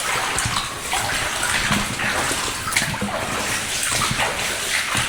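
Water splashing and sloshing around a person's legs as they wade in waders through knee-deep water, with irregular splashes from each step.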